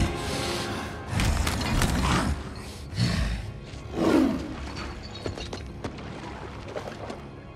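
Film soundtrack: music under sound effects of cracking, creaking ice, with heavy swells about once a second in the first four seconds and sharp cracks scattered through.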